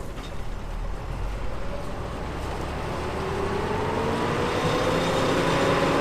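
A vehicle engine running, its pitch rising slowly and steadily while it grows gradually louder, over a low rumble.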